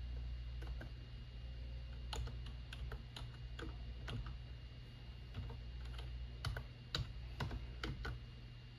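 Typing on a computer keyboard: irregular key clicks, a few louder keystrokes about two-thirds of the way through, over a low steady hum.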